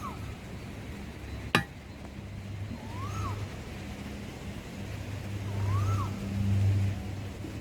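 A short call rising then falling in pitch, heard three times about three seconds apart, over a low steady engine-like hum that grows louder near the end. A single sharp click about a second and a half in is the loudest moment.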